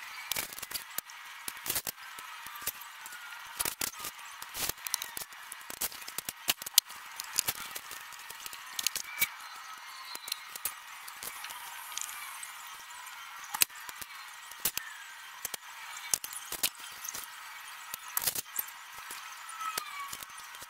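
Vinyl wrap film being handled, pressed down and trimmed by hand on a pickup truck's body: irregular sharp clicks and crackles, several in a row at times, over a thin steady hiss.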